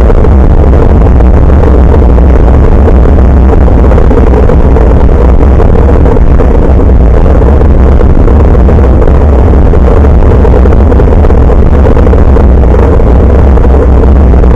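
Loud, steady wind rumble and road vibration on the built-in microphone of a handlebar-mounted Nikkei Extreme X6 action camera while a bicycle is ridden. The deep rumble is the loudest part and does not let up.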